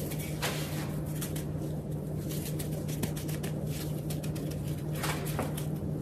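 Soft rustling and patting of gloved hands pressing a salmon patty into a loose cornmeal-and-flour coating in a glass dish, over a steady low hum.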